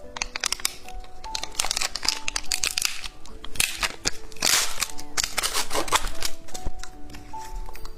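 Rapid sharp clicks and crinkles of plastic candy packaging being handled, busiest midway, over light background music with simple held notes.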